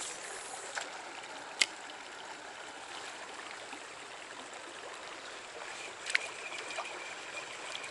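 Trout stream water running steadily, with two sharp clicks, about a second and a half in and again about six seconds in.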